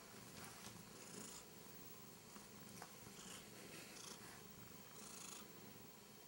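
Korat cat purring faintly while being rubbed under the chin, with a few soft rustles of fingers on fur.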